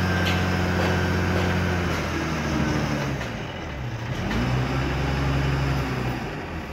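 Wheel loader's diesel engine running hard while its bucket tips out a load of sand. The engine note sinks about two seconds in, then climbs and holds again from about four and a half seconds in as the loader backs away.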